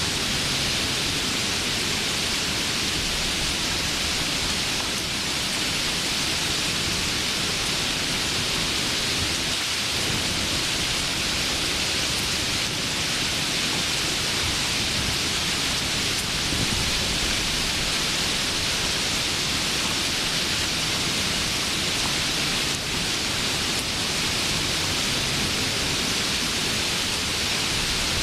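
Rain falling steadily as a dense, even hiss.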